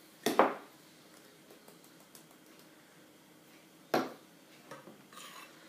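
A seasoning shaker set down on a kitchen worktop with a sharp knock just after the start, then a second sharp knock about four seconds in, as of dishes or a utensil being handled.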